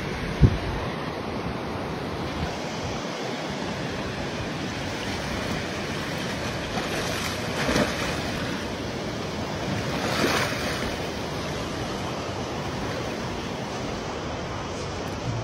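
Humpback whale surfacing close by, heard as two broad rushing sounds about two and a half seconds apart around the middle, over steady wind and water noise on the microphone. A sharp knock about half a second in.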